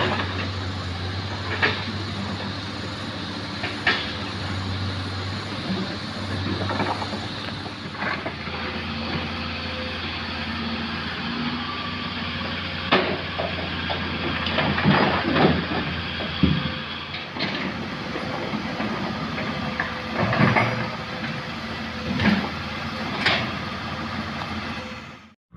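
Heavy diesel machinery running steadily with a low drone, with sharp knocks and clanks every few seconds as rocks are loaded into a dump truck. The sound cuts off abruptly near the end.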